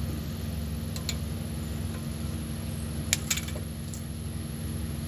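Several light metallic clicks and clinks of hand tools during brake bleeding on a caliper, a pair about a second in and a cluster a little past the middle, over a steady low hum.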